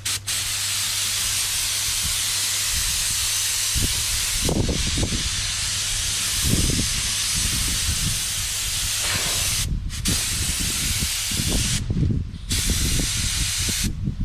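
Air-fed paint spray gun hissing as it sprays clear coat over a repaired car bumper in long passes. The trigger is released briefly twice near the end. Low rumbling sits under the hiss from about four seconds in.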